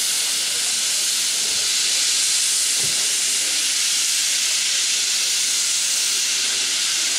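Steam locomotive hissing steadily as steam blasts out of its open cylinder cocks on both sides.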